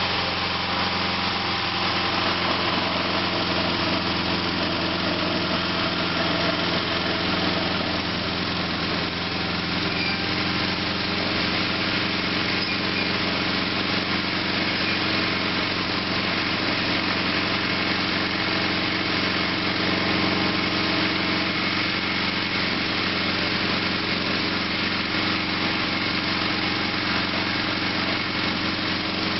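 Sears SS/16 garden tractor's Onan twin-cylinder engine running at a steady speed, with no change in pitch or level.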